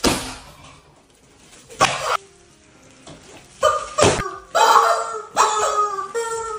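Rubber screaming chickens honking loudly as they are stepped on, several honks close together in the second half. Three sharp smacks come first: at the start, about two seconds in, and about four seconds in.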